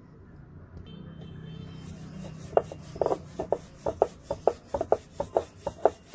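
Rolling pin rolling out a round of maida dough on a wooden board. From about two and a half seconds in, it gives a quick series of short knocks and rubs of wood, about five a second.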